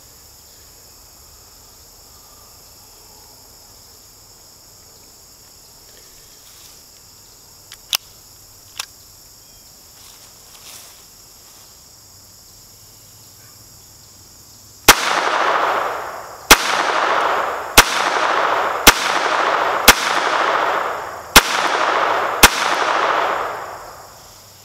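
Seven shots from an Iver Johnson TP22 .22 LR pocket pistol, fired at an uneven pace of roughly one a second, each sharp crack trailing off over about a second. A few light clicks come earlier, before the shooting starts.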